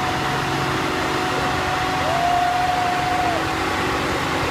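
Engine of a 1963 Studebaker six-wheel-drive truck running steadily in low gear as it starts a slow truck pull, with a thin steady whine over it and a second whine for about a second near the middle.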